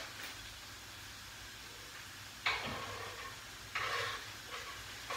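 Grated carrot being tipped from a cutting board into a pan of frying onion, with a short scraping, sizzling rush about two and a half seconds in and another about a second later.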